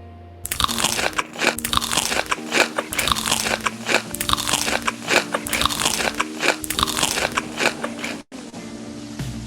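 Loud, close-up crunching as crisp food is bitten and chewed. The crunching starts about half a second in and breaks off briefly near the end.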